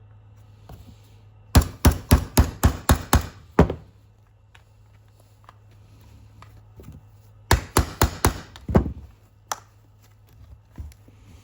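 Two quick runs of hammer blows, about eight strikes and then, a few seconds later, about five more, with one last single blow.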